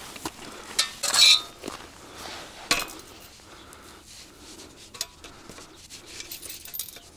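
Helios hand ice auger being handled: metal parts clank and click as it is lifted and its handle is fitted and locked at the clamp. The loudest clank, with a brief metallic ring, comes about a second in, followed by a few lighter clicks.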